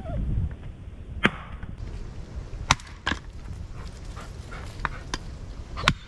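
A series of sharp, irregular knocks, about six in six seconds, the loudest a little over a second in and just before the three-second mark.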